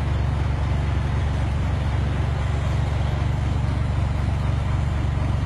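Steady low vehicle rumble with a constant wash of road noise, unchanging throughout.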